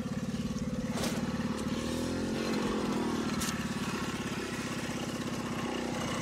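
Dirt bike engine idling with a fast, even pulse, its revs rising slightly about two seconds in and settling again. Two sharp clicks cut across it.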